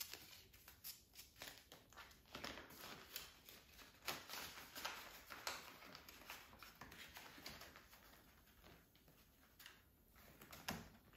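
Faint crinkling and rustling of a clear plastic binder pocket and paper banknotes being handled as cash is slipped inside, made of many small crackles that die down near the end.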